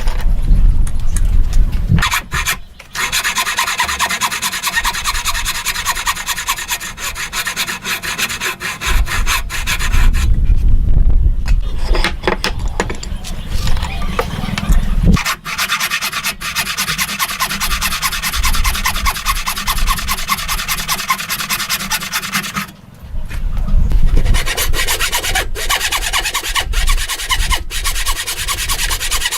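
Hand tool working wood in long runs of fast, rasping strokes, stopping briefly three times.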